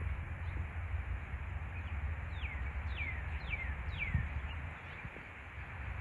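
A bird calling four falling whistled notes in quick succession, a little over two seconds in, over a steady low outdoor rumble.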